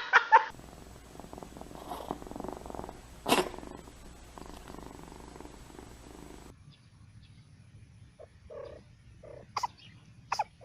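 Kitten sneezing: one sharp sneeze about three seconds in, then a few smaller, quick sneezes near the end.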